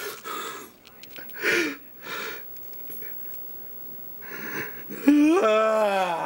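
Short breathy, wheezy huffs of a person's breath, then about five seconds in a loud, drawn-out vocal sound that rises and then slides down in pitch.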